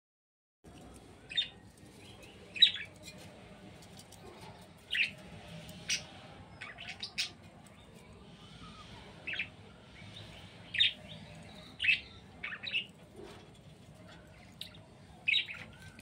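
Budgerigars chirping in short, sharp calls, about a dozen at irregular intervals.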